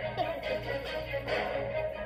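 Music with low notes repeating at a steady pace and a short falling glide a moment in.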